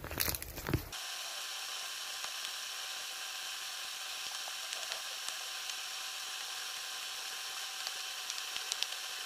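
About a second of rustling handling noise, then a steady high-pitched insect chorus with a few faint ticks near the end.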